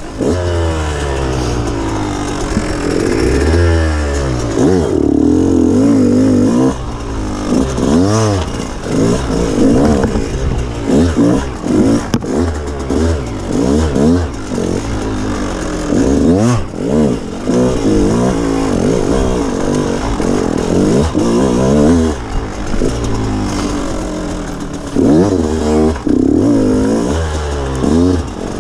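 Dirt bike engine revving up and down again and again as the rider works the throttle, pitch climbing and dropping every second or two with brief lulls between bursts.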